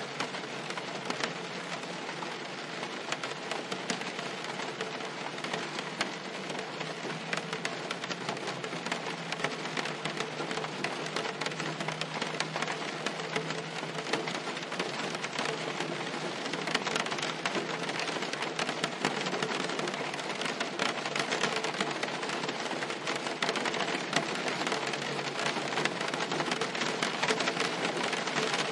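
Steady rain pattering on a car's roof and windshield, a dense spray of drop impacts that grows gradually louder.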